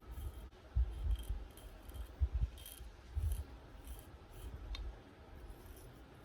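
Axe edge working in short, crisp, irregular strokes, with low handling bumps.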